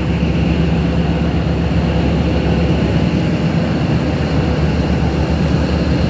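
A tugboat's diesel engines running steadily under way, a loud, even low drone.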